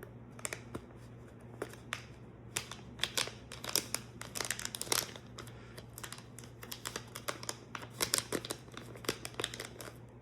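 Plastic packaging crinkling as small parts are unwrapped and handled: an irregular run of sharp crackles and rustles.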